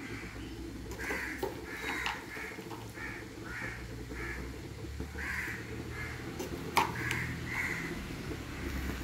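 Crows cawing over and over, short calls coming one or two a second, over a low steady hum. A sharp click comes about seven seconds in.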